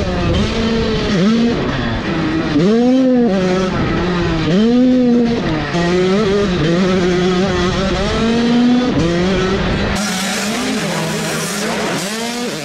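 Motocross bike engine at close range, revving up and falling off again and again as the rider works the throttle around the dirt track. Near the end the sound turns brighter and hissier.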